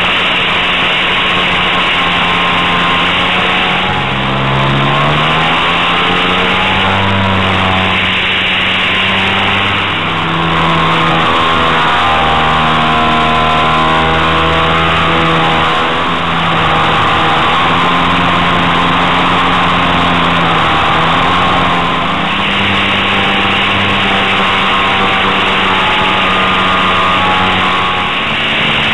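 Radio-controlled model aircraft in flight, heard from a camera on its own fuselage: a steady rush of air with a droning tone that shifts up and down in pitch every few seconds.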